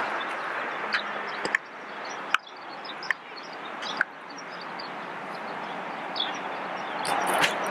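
Steady outdoor background noise with a few sharp, short knocks in the first four seconds and a louder cluster of clicks near the end.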